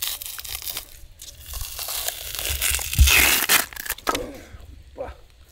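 Skin being ripped off a small shark gripped in burlap sacking: rough tearing and rasping that builds to its loudest about three seconds in, with a dull thump at that point.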